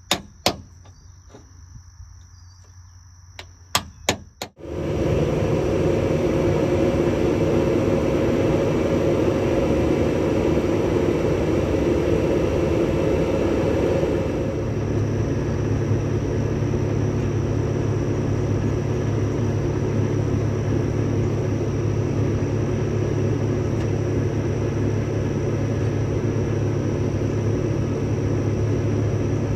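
A few sharp hammer blows on a steel punch, then a heavy machine's engine running steadily, its sound shifting to a deeper, lower drone about fourteen seconds in.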